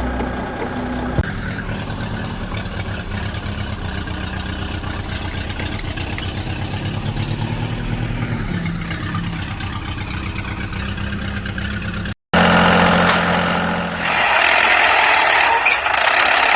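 Engine running steadily at a low pitch. After a brief cut to silence about twelve seconds in, a louder, harsher engine sound takes over.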